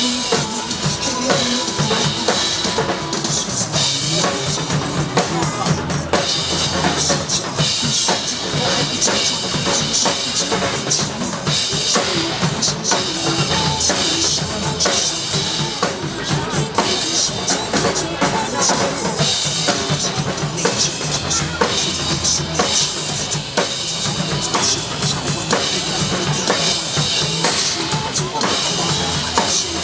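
Drum kit played in a steady groove over recorded backing music: bass drum, snare and bright cymbals.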